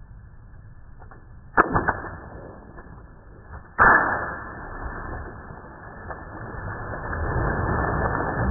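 Giant water balloon hit by a diving body: a sharp smack about a second and a half in, then a loud burst about four seconds in, followed by a long rush of splashing water that grows toward the end.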